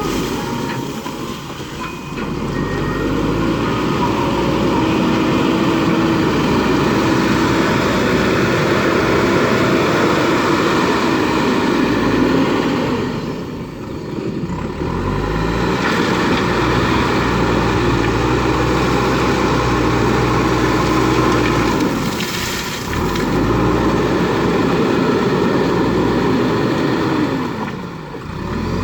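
JCB backhoe loader's diesel engine running under load, its revs rising and falling in repeated cycles, with brief drops in pitch and level about every six to eight seconds as the machine works.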